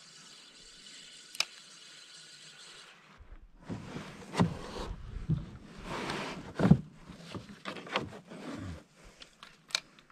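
Faint hiss with one click, then about three seconds in a run of irregular knocks, scrapes and rustles, the loudest about halfway through and near seven seconds: handling noise and bumps against a small boat's hull as a rod is worked over the side.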